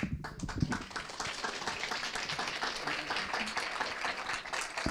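Audience applauding: steady, dense clapping, with a few low knocks in the first second.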